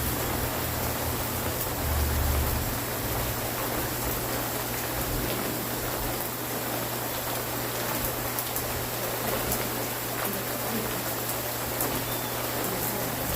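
Steady rain falling, an even hiss with scattered drop ticks, over a constant low hum.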